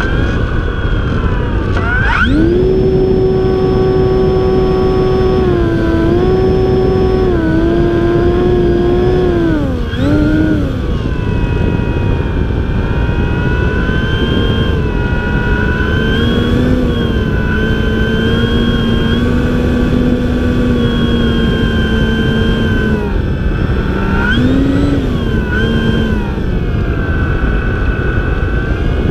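Radio-controlled airplane's motor and propeller whining in flight, heard from a camera on the plane. The pitch shoots up about two seconds in, then steps and glides up and down with the throttle, dipping about ten seconds in and again near the end, over heavy wind rush on the microphone.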